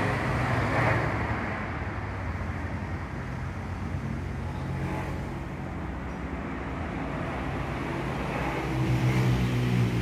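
Steady background road traffic with a low engine hum, swelling about a second in and again near the end.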